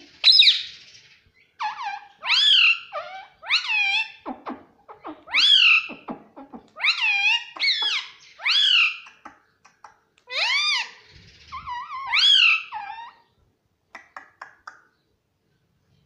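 Male Indian ringneck parrot vocalizing in a rapid string of about fifteen loud, short sounds, each rising then falling in pitch; they stop about thirteen seconds in, leaving a few faint clicks.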